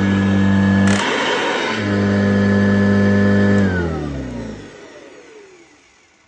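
1977 Kirby Classic III upright vacuum cleaner's motor running with a steady hum, broken about a second in by a brief rush of air noise before settling again. About two thirds of the way through it is switched off and winds down, the pitch sliding lower as it fades.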